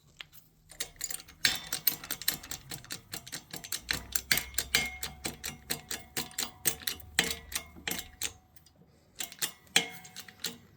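Rapid, irregular metallic clicks and clinks of steel parts being handled, several ringing briefly, with a short lull about eight seconds in.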